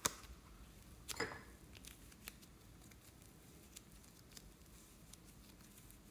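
Faint handling sounds of hands pulling and stretching soft red clay: a sharp click at the start, a short falling squeak about a second in, then faint light clicks.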